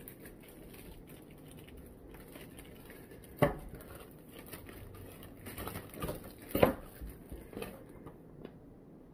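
Handling noise: light scattered clicks and taps, with two sharper knocks about three and a half and six and a half seconds in.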